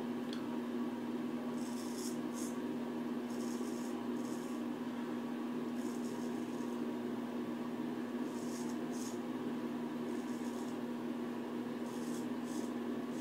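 Dovo 5/8 straight razor scraping through lathered stubble on the neck: a series of short, raspy strokes every second or two, over a steady low hum.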